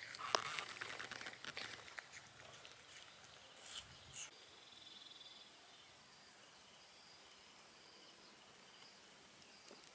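Small crackling clicks of baby macaques chewing apple slices, densest in the first two seconds, with a couple of brief knocks around four seconds. After that it is quiet outdoor ambience with a faint high insect trill.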